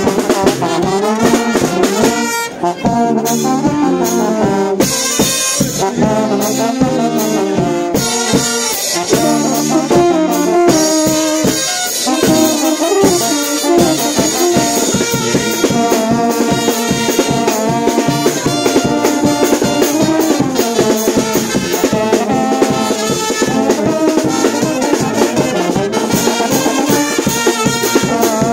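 Live brass band playing a tune: trumpets and trombones lead, with clarinets, over a steady drum and cymbal beat.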